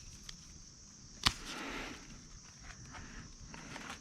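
A sharp snap about a second in, followed by a brief rustle of grapevine leaves and clusters as grapes are picked, over a steady high drone of crickets.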